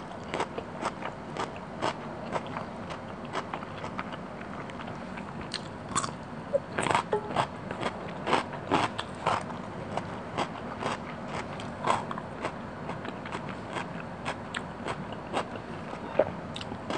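Close-miked chewing of a mouthful of fish curry and rice: frequent short, wet mouth clicks and smacks, several a second, with a run of louder ones in the middle.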